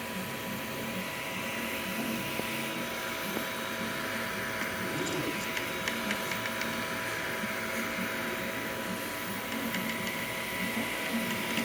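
Creality 3D printer running a print: stepper motors whirring and shifting in pitch as the print head moves, over a steady cooling-fan hum.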